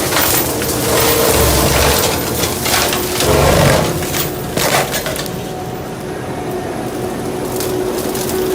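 A machine crushing and splintering wood, with irregular crunching bursts over the steady drone of its running engine.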